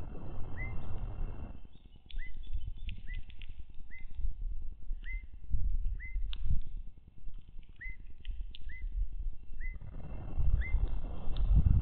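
A bird calling: short chirps that hook upward, repeated every half second to a second. A low rumbling noise comes through at the start and again near the end.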